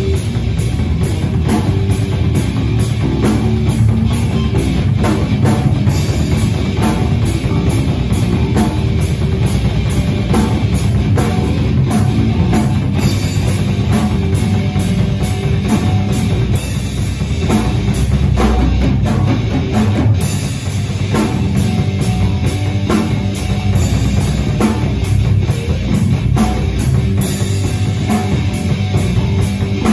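Rock band playing loud and steady, with a drum kit keeping the beat under guitar.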